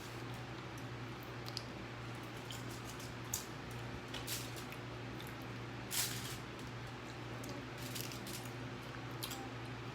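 Close-up eating sounds: wet chewing, mouth clicks and a few short crunches, scattered irregularly. The loudest comes about six seconds in. A steady low hum runs underneath.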